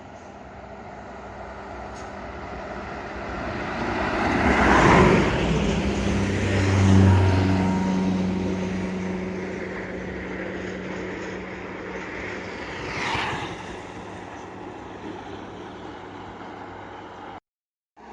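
A heavy diesel bus engine working hard up a climb as it passes close by, building to its loudest about five to seven seconds in with a steady low engine note, then fading away. A second, smaller passing vehicle comes through about thirteen seconds in, and the sound cuts out abruptly just before the end.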